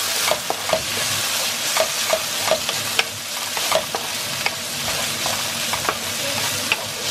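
Diced red and yellow bell peppers and spinach sizzling steadily in a nonstick frying pan while a wooden spatula stirs them, with repeated light scrapes and taps of the spatula against the pan.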